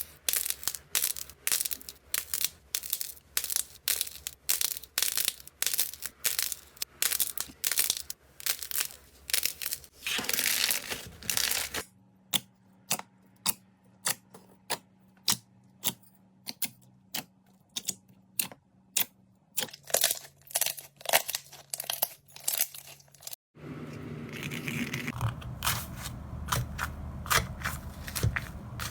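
Slime being pressed, poked and stretched by hand, giving rapid crisp clicks and crackles, about two or three a second at first, then sparser. About two-thirds of the way through there is a cut to another clip with denser crackling over a fuller noise.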